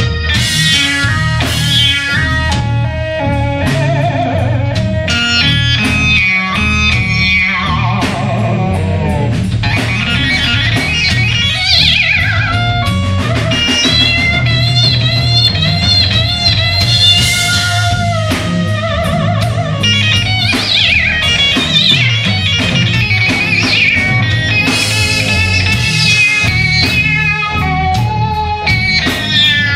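Live rock band playing: an electric guitar lead with string bends, slides and vibrato over bass guitar and drum kit.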